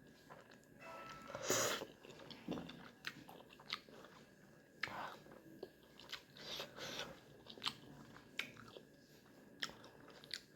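Chewing and biting food, with short scattered mouth clicks and a louder bite about one and a half seconds in.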